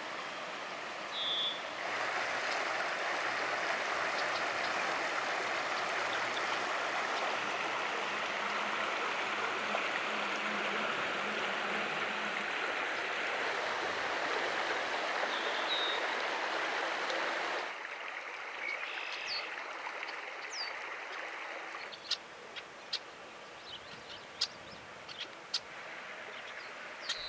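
Shallow trout creek running over a gravel riffle: a steady rush of water that stops abruptly about two-thirds of the way through. A quieter background follows, with a few short high bird chirps and scattered light ticks.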